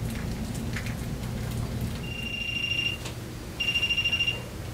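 A toy-car trigger prop alarm beeps twice: a high electronic tone just under a second long, then a shorter one with a fast flutter. The alarm sounds when something comes within its proximity sensor's range of about 6–12 inches.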